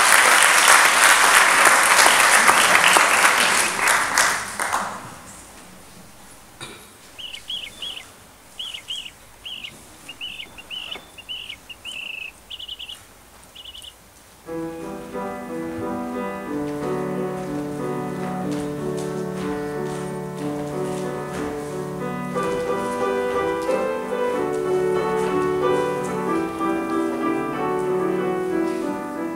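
Applause that fades out over the first five seconds, then a quiet run of short, high bird-like chirps. About halfway through, a piano starts playing a chordal introduction.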